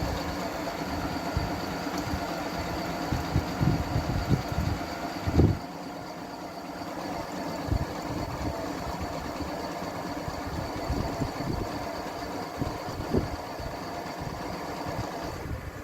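Singer computerized sewing machine stitching out programmed lettering: the motor and needle run steadily and mechanically with low knocks, more quietly from about five seconds in, and the machine stops by itself near the end.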